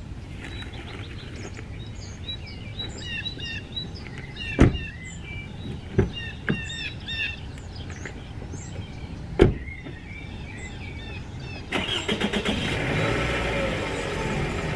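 Birds chirping, with a few knocks as someone climbs into a car and a door shut with a thud about nine seconds in. Near the end the sedan's engine cranks, starts and keeps running.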